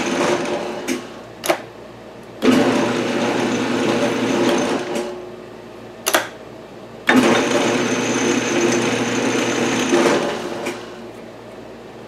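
Metal lathe's motor and spindle running in three separate runs of a few seconds each, starting sharply and tailing off, as it drives a tap held in the tailstock chuck to cut an internal thread in the workpiece. A few sharp clicks fall in the pauses between runs, the loudest about six seconds in.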